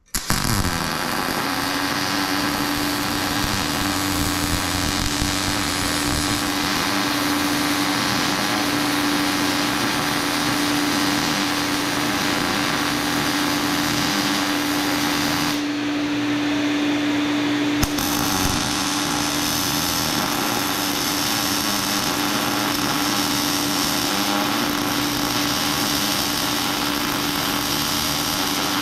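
Welding arc crackling steadily as a bead is laid, with a brief break about sixteen seconds in. Under it the Lincoln Electric Mini Fume X-Tractor's fan runs with a steady hum. The extractor switched on by itself as it sensed welding current in the torch cable.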